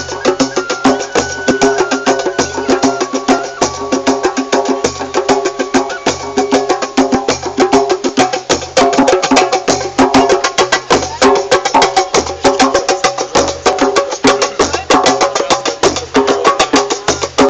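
Percussion-led music: a fast, dense patter of wooden-sounding strikes over sustained tones, with a low beat about once a second.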